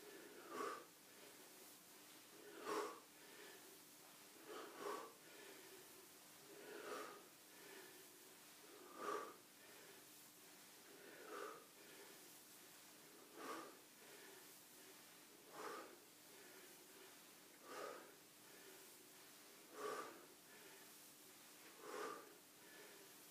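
A man breathing out sharply with each squat, about once every two seconds, over a faint steady hum.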